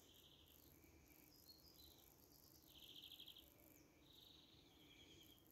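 Near silence with faint songbirds: short high chirps and trills, the loudest a rapid trill about three seconds in.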